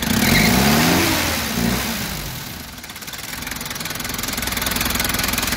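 Turbocharged Toyota B-type four-cylinder diesel engine revving up once at the start, then falling back and idling steadily with a diesel clatter. The seller calls the engine very healthy and its sound still very crisp.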